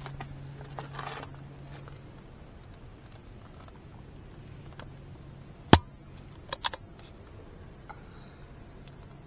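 A single sharp knock a little over halfway through, followed moments later by a quick run of three clicks, over a faint steady background. A faint high steady buzz comes in near the end.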